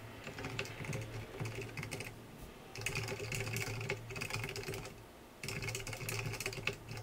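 Typing on a computer keyboard in quick runs of keystrokes, with short pauses about two seconds in and again about five seconds in.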